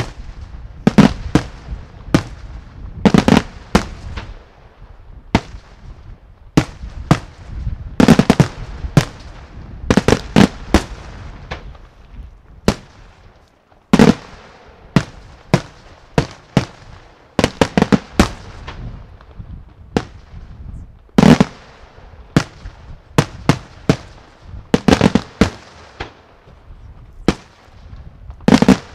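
Daytime aerial fireworks from Senatore Fireworks: shells bursting overhead in an irregular series of sharp bangs, some alone and some in quick clusters, with echoing tails and a low rumble between them.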